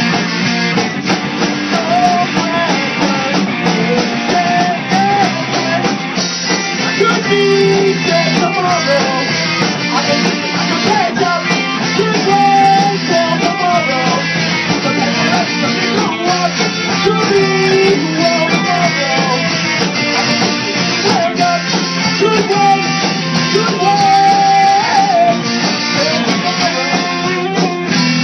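Live rock band playing a full-band passage on electric guitars, keyboards, bass guitar and drums, with a lead line bending in pitch over a steady backing.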